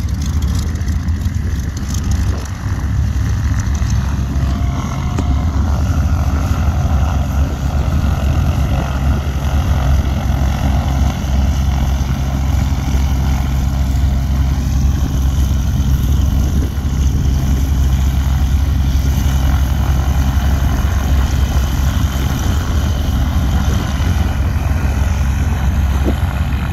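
High-wing light aircraft's piston engine and propeller running steadily on the ground, a continuous deep drone.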